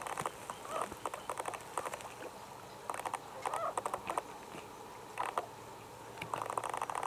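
Short bursts of rapid pulsed rattling calls from wetland animals, several in a row with brief pauses between them.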